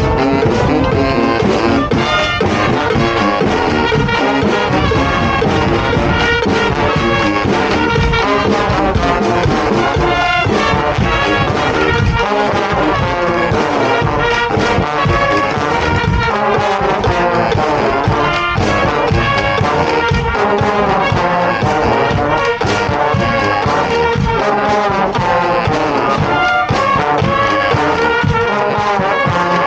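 A street brass band playing a tune together, trombones and trumpets over steady percussion hits.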